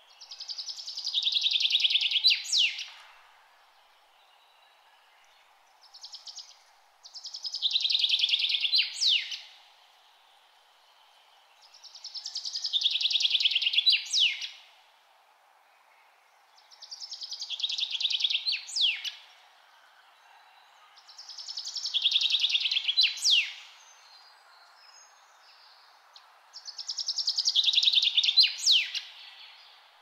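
A songbird repeating the same song six times, about every five seconds. Each phrase is a fast trill of about two seconds that grows louder and ends in a quick high flourish. A faint steady hiss runs underneath.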